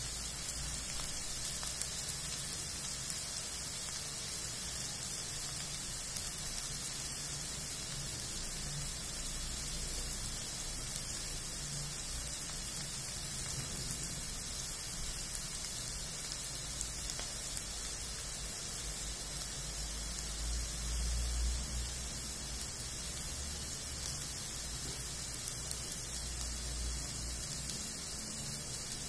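Chopped carrots and onions sizzling gently in oil in a pan, a steady hiss.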